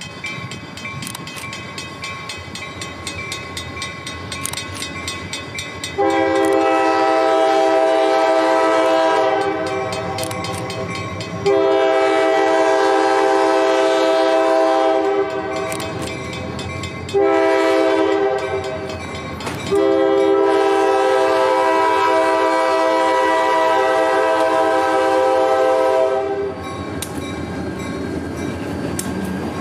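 A grade-crossing bell dings steadily as a freight train led by 4-axle EMD diesel locomotives approaches. About six seconds in, the lead locomotive's multi-chime air horn sounds the grade-crossing signal: long, long, short, long, with the last blast held about six seconds. Near the end the locomotives pass close by with a rumble of diesel engines and wheels on the rails.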